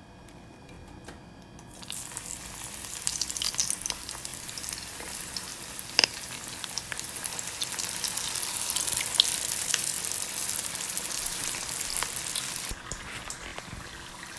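Filo-wrapped samosas deep-frying in hot oil: sizzling and crackling begins suddenly about two seconds in as they go into the oil, with a couple of sharp pops. The sizzle eases off slightly near the end.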